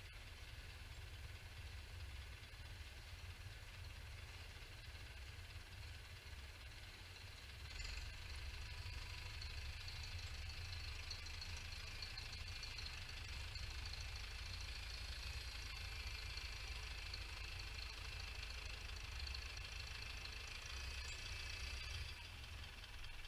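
International Harvester 745 XL tractor's four-cylinder diesel engine running with a low steady rumble, growing louder about eight seconds in as the tractor drives out with its snowblower mounted, and easing off near the end.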